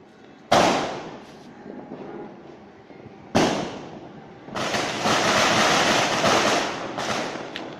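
Firecracker noise: a sudden loud burst that trails off in hiss, a second burst a few seconds later, then a longer stretch of hissing and crackling.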